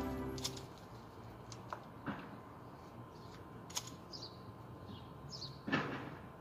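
A long hand blade hacking at a hedge: scattered sharp chops and swishes through the leaves, the loudest about six seconds in, as background music fades out at the start.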